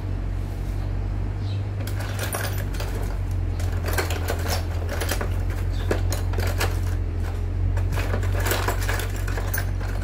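Metal hand tools and small parts clinking and rattling as a hand rummages through a plastic toolbox, in irregular bursts from about two seconds in. A steady low hum runs underneath.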